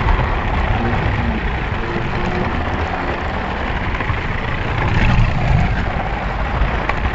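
Slot car running at speed around the track, heard up close from a camera riding on the car: a steady, loud mechanical rushing noise of its electric motor, gears and tyres in the slot, with a louder low surge about five seconds in.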